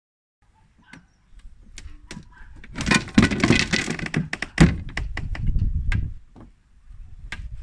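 Knocks, clicks and rattles from handling a wooden seat bench and a small rope-and-pulley tackle inside a folding boat's hull. Scattered clicks lead into a dense rattling stretch about three to four seconds in, then one sharp knock, then quieter rumbling handling noise.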